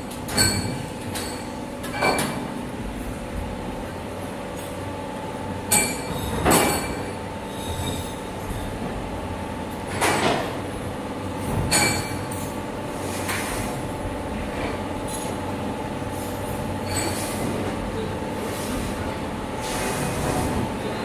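Factory machinery running with a steady hum and a few held tones, broken by repeated sharp knocks at irregular intervals.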